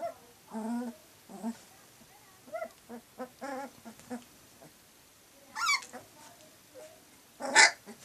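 Three-week-old puppies crying out as they play-fight: a run of short whines and yelps, with a high squeal about five and a half seconds in and the loudest yelp near the end.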